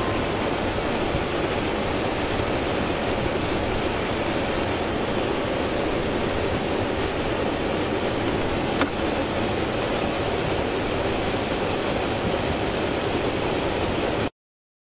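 Steady vehicle cabin noise, a rumble and hiss of road and engine, with one short click about nine seconds in. It cuts off abruptly near the end.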